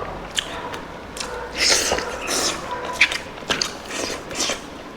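A person chewing and biting into spicy pork curry, with many short sharp clicks and a longer crunchy stretch about one and a half to two and a half seconds in.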